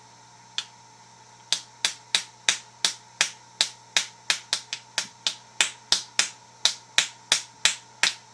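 A bump key in a pin-tumbler lock being struck over and over with a bump hammer while tension is held on the plug: about twenty sharp metallic taps at roughly three a second, after a single tap near the start. Each blow is meant to jolt the pins so that the plug can turn.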